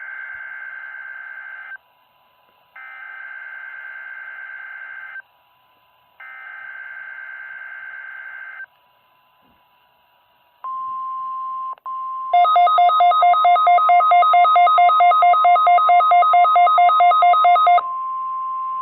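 NOAA Weather Radio weekly test signals: three bursts of screeching, warbling SAME digital header data, each about two and a half seconds long. About 11 s in, the steady 1050 Hz warning alarm tone starts. From about 12 to 18 s, a loud electronic beep pulsing about five times a second sounds over the alarm tone.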